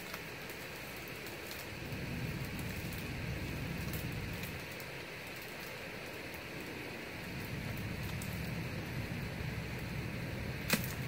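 Steady outdoor noise, an even hiss with swells of low rumble, and one sharp click near the end.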